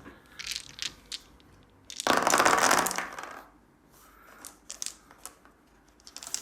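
Handful of gaming dice rattled and rolled onto a tabletop, a loud clatter about two seconds in that lasts about a second, with scattered lighter clicks and taps of dice being handled before and after.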